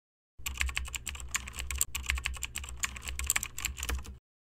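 Fast typing on a computer keyboard: a dense run of key clicks with a low hum underneath, starting just after the start and cutting off shortly before the end.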